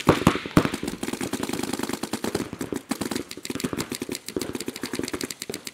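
Paintball markers firing in fast continuous streams, a rapid rattle of shots, with a few louder pops in the first half-second.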